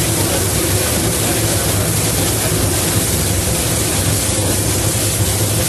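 Running noise in the cab of the Disneyland Railroad's Ward Kimball steam locomotive under way: a steady, even rushing hiss with a low hum underneath and no distinct beats.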